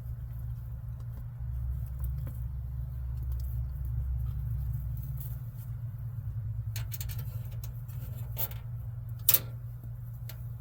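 Small clicks and metal taps from hand tools and door-handle parts being worked, the sharpest and loudest about nine seconds in, over a steady low hum.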